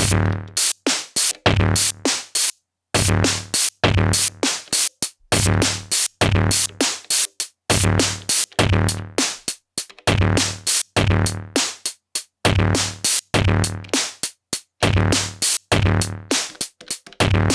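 Elektron Digitone FM synthesizer playing a drum pattern: a steady beat of deep synthesized kick drums with crisp hi-hat ticks between them, briefly dropping out for a beat about two and a half seconds in.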